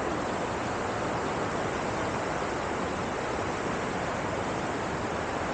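Waterfall water rushing steadily, an even, unbroken noise with no changes in level.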